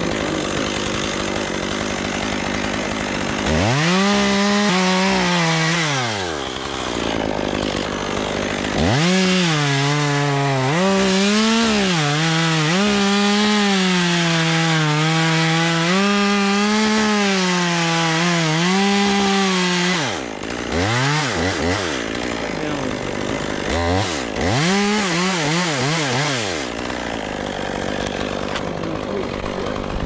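Chainsaw revving, then running at full throttle through a cut for about ten seconds, its pitch dipping and wavering under load as it cuts wood. It ends with a few short throttle blips.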